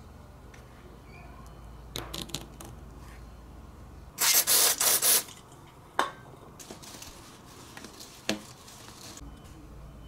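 Degreasing cleaner sprayed in three quick bursts about four seconds in, to degrease the end of a new washing-machine drain hose. A few light handling clicks and knocks come before and after.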